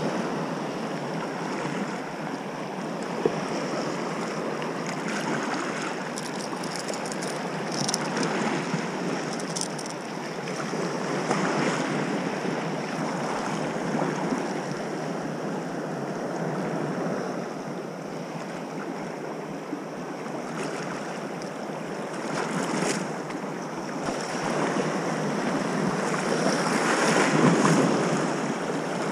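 Small sea waves washing and lapping in shallow water, with wind on the microphone. The water noise grows louder near the end.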